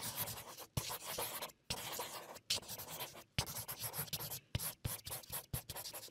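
Felt-tip marker drawing on paper: a quick run of scratchy strokes, each under a second, with brief gaps between them.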